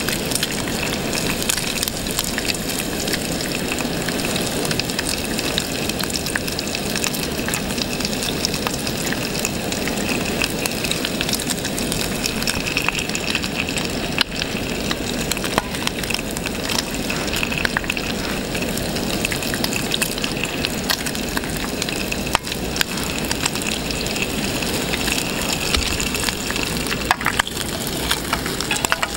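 Bacon frying in a metal mess tin on a gas camping stove: a steady sizzle with frequent small crackles and pops.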